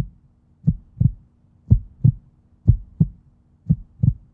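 Heartbeat sound effect: a steady 'lub-dub', paired low thumps repeating about once a second over a faint low hum.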